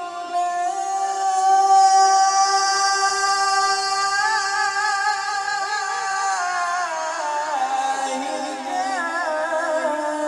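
A male qari's melodic Quran recitation: a long held vowel drawn out over several seconds, ornamented with wavering turns of pitch and stepping lower in the second half.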